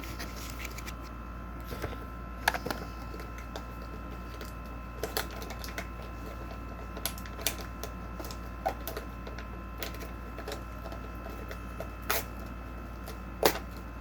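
Trading cards and their packaging being handled, giving scattered taps and clicks over a steady background hum. The loudest clicks come about two and a half seconds in and near the end.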